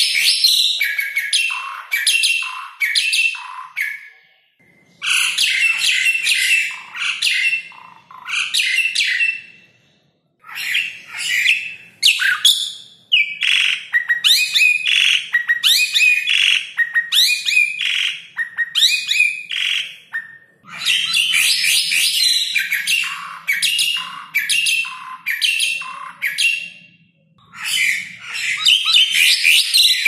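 Asian pied starling (jalak suren) singing: phrases of rapid chattering and whistled notes several seconds long, broken by a few short pauses.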